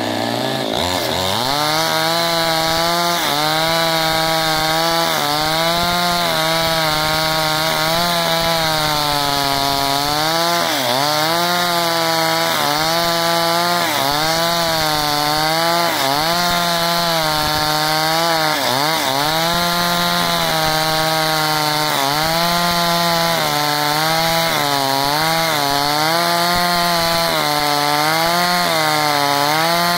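Two-stroke chainsaw at full throttle ripping lengthwise along the grain of a very hard log. The engine revs up as the cut starts, then runs on with its pitch dipping and recovering again and again as the chain bogs in the wood and frees up.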